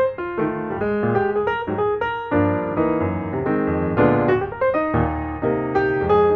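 Background piano music: a steady run of bright notes over a bass line.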